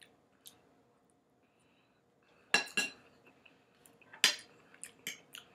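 A metal fork clinking against a plate and bowl in a few sharp, separate clinks: two close together about two and a half seconds in, the loudest a little after four seconds, then several quick lighter ones near the end.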